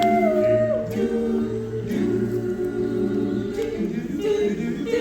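A cappella vocal ensemble singing, several voices holding harmonized chords that shift every second or so, with no instruments.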